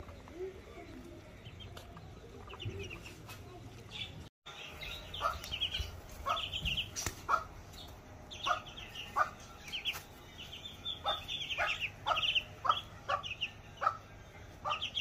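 Ducklings peeping, a steady run of short, high calls.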